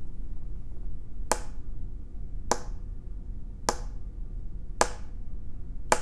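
Homemade Foley sound effect: five sharp taps, evenly spaced a little over a second apart, over a steady low hum.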